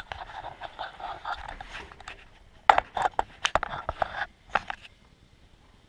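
Scraping for about two seconds, then a quick run of sharp clicks and knocks, from handling the bike's rear wheel and its axle nuts while it is worked out of the dropouts.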